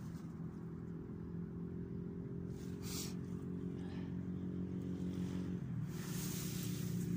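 An engine running steadily, its pitch shifting slightly a little before six seconds in, with a brief hiss about three seconds in.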